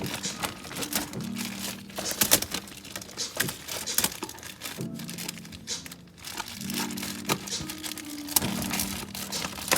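Background music with held low notes, over crinkling and clicking of plastic as household items are handled.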